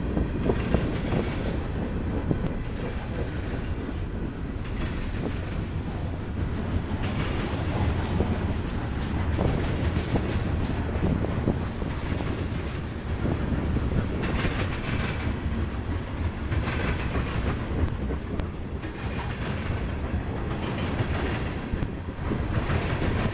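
Freight train of tank cars and covered hoppers rolling past, a steady rumble of steel wheels on rail with repeated clicks as the wheels cross rail joints.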